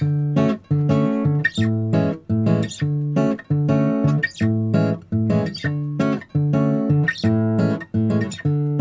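Background music: guitar chords strummed in a steady rhythm, about two strums a second.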